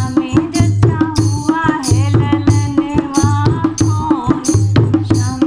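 Dholak played in a steady folk rhythm, deep booming strokes on the bass head alternating with sharp slaps on the treble head. A woman sings an ornamented sohar folk melody over it.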